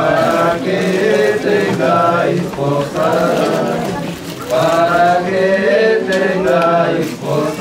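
Voices chanting in long, sustained phrases, with a short break about four seconds in and another near the end.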